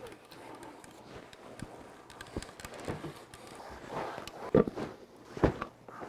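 Sofa cushions being put onto a slipcovered sofa: soft fabric rustling and shuffling, with two dull thumps about a second apart near the end as cushions are dropped into place.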